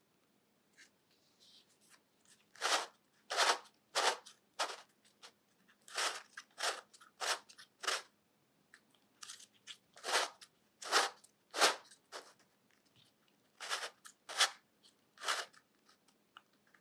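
3D-printed plastic twisty puzzle turned by hand, each turn a short scrape of plastic pieces sliding past one another. About sixteen turns come in three quick runs with brief pauses between.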